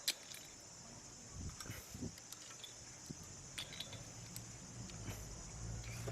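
Light, scattered metallic clicks and taps of hand tools and small metal parts being handled during engine work, over a steady high hiss.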